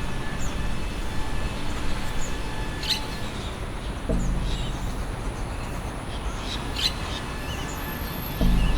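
Short, high bird chirps at scattered moments over a continuous low rumble of ambient noise, from a field recording used in a soundscape composition; the rumble gets louder about four seconds in and again near the end.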